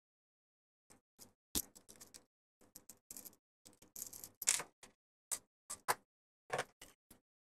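Handling noises of a plastic mains plug being opened with a small screwdriver: scattered light clicks and taps of plastic and small screws, with a few brief scrapes.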